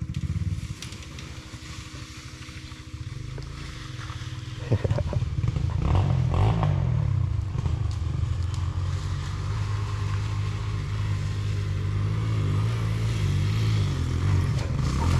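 Gasoline dirt bike engine running, growing much louder about five seconds in and then rising and falling in pitch as the throttle is worked.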